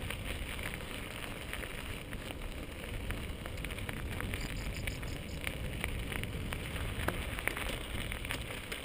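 Mountain bike tyres crunching over a loose gravel dirt track, with many small scattered clicks and rattles from stones and the bike.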